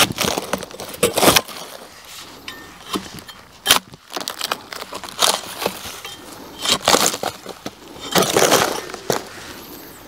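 Barking spud striking and scraping a dead, beetle-killed yellow pine log, knocking off loose bark in irregular cracking, crunching strokes, about a dozen of them, with a longer scrape near the end. The bark comes away easily because the tree has died and the bark is slipping off the wood.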